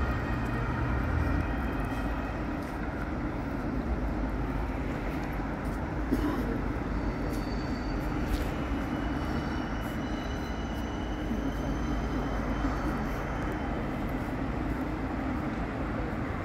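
Steady low rumble of a light-rail tram and city traffic, with faint high whines in the middle.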